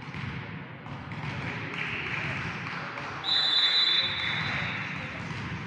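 Referee's whistle blown once, a steady high tone lasting under a second about three seconds in, authorising the serve, over the steady background noise of a sports hall.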